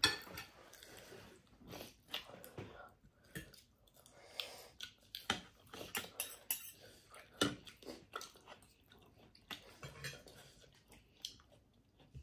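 Close-miked chewing of food, with forks and spoons clicking against plates in an irregular string of short clicks and smacks.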